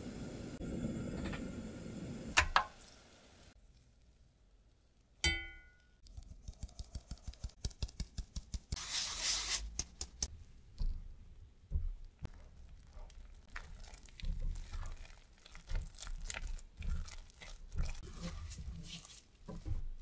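Choux dough being made in a stainless steel pot. Milk and butter are simmering at first, with a sharp clink and then a single ringing metal strike. A fine-mesh sieve is then tapped several times a second as flour is sifted in, followed by a brief rustle. After that a silicone spatula stirs the dough with irregular knocks and scrapes against the pot.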